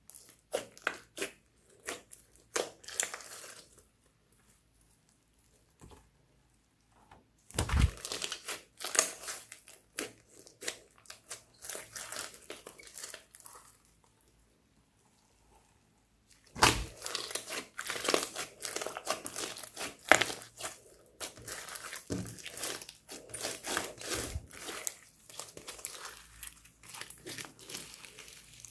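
Pink slime with small beads mixed in, squeezed, stretched and folded by hand: bursts of sticky popping and crackling, broken by two short pauses.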